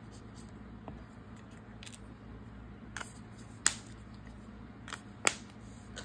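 Hands putting down a colouring marker and a paper leaf on the craft mat: a handful of light, sharp clicks and taps in the second half, the sharpest a little past halfway, over a low room hum.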